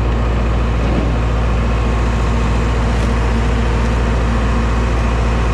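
Seed-cleaning machinery running steadily while cleaning oats: a constant heavy hum with a fast, even mechanical rattle.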